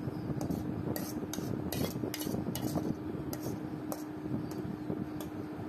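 Metal spatula scraping and clinking against a metal cooking pan as curry is pushed out of it into a ceramic bowl: an irregular run of short scrapes and clinks, about two or three a second, over a steady low hum.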